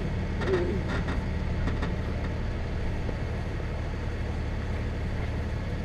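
Vehicle engine idling steadily with an even low hum.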